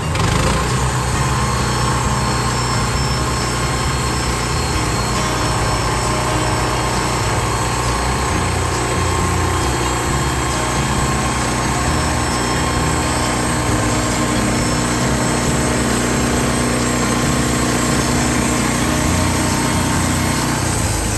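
Norwood LM30 portable band sawmill's gas engine running steadily.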